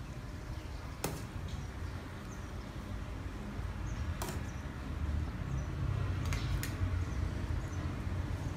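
A metal ladle clinking a few times against a stainless steel pot and a ceramic bowl while soup is ladled out, once about a second in, again around four seconds, then twice in quick succession, over a steady low rumble.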